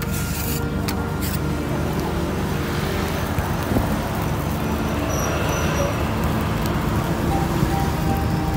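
Steady low rumble of street traffic and background noise, with a few sharp clicks in the first second or so.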